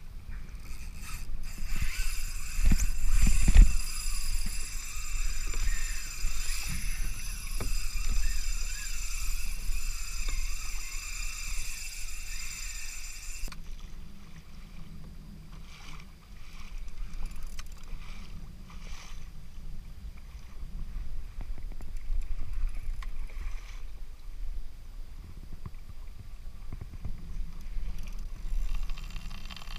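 Wind rumbling on the microphone and water washing along a kayak's hull as a hooked shark tows it. For about the first half a high, steady whine runs over it, then cuts off abruptly.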